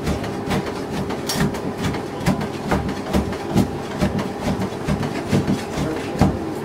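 Repeated irregular knocks and clatter, a few a second, some with a heavier thump, over a steady background hum.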